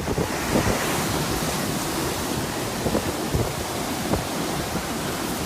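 Derecho straight-line wind gusting hard, a dense steady rush with low buffeting of wind on the microphone and scattered thumps.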